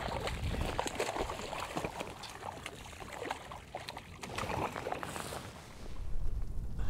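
A hooked fish splashing and thrashing at the water's surface beside a kayak as it is reeled in and swung aboard: irregular splashes and sloshing water.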